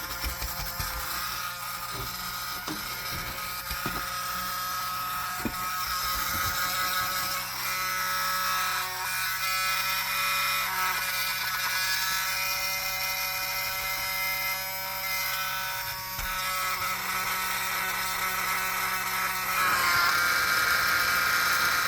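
Small battery-powered motor of a QESCO mini vacuum cleaner running continuously with a high-pitched whine the owner calls screaming, which he thinks means the motor needs lubricating. A few light clicks of handling in the first seconds.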